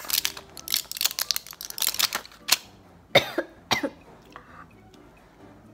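A woman coughing: a run of short, breathy coughs, then three louder coughs just after three seconds in.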